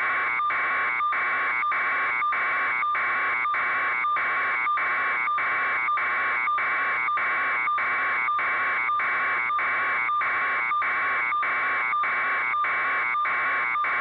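Electronic alarm tone, buzzer-like, pulsing steadily about twice a second.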